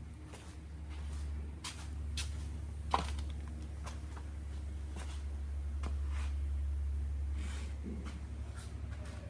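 Footsteps and small knocks from someone walking with the camera, scattered over a steady low rumble, with one louder knock about three seconds in.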